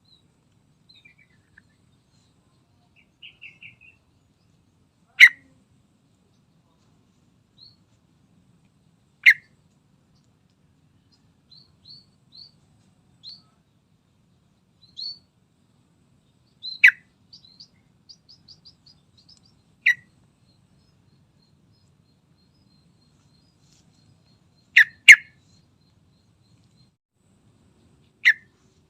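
Yellow-vented bulbul (trucukan) calling: short, loud, sharp notes every few seconds, one a quick double note, with faint high chirps between them.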